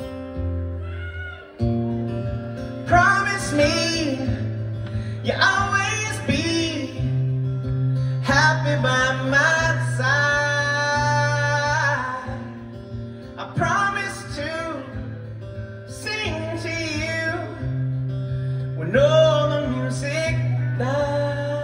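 Live pop ballad: a male lead vocal sings long, wavering phrases over strummed acoustic guitar and held low bass notes, heard through the concert PA.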